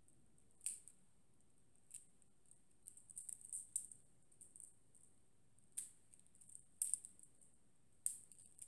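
Faint, irregular clicks of tesbih prayer beads knocking together and against the fingers as the string is flipped around the hand, with a quick cluster of clicks about three seconds in.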